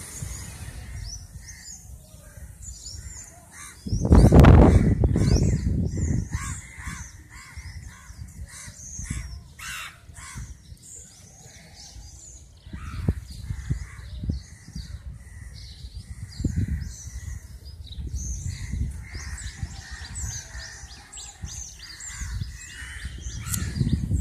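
Crows cawing over and over, with small birds chirping high above them. A loud low rumble lasting about two seconds comes some four seconds in.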